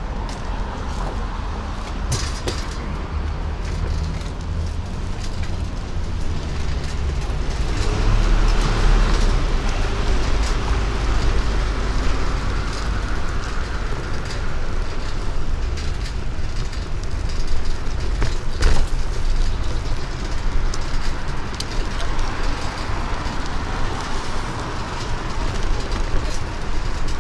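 Street ambience with road traffic going by, a steady low rumble that grows heavier about eight seconds in for several seconds, with occasional small knocks.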